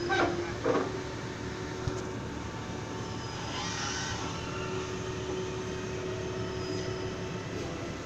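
Forklift running steadily from inside its cab, with a constant mechanical whine over the engine noise. Two brief sharp sounds come in the first second, and a short hiss around the middle.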